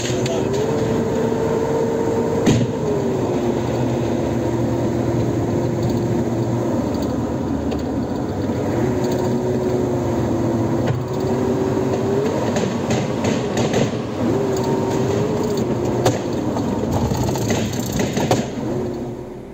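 A vehicle engine running under load, its pitch stepping up and down every few seconds, with rattling and knocks over it. It fades out near the end.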